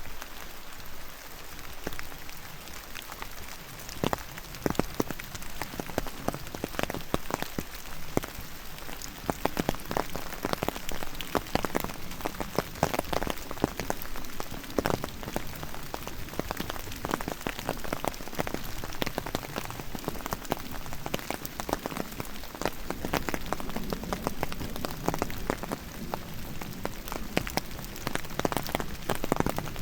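Steady rain falling, with many irregular raindrops and drips tapping close by.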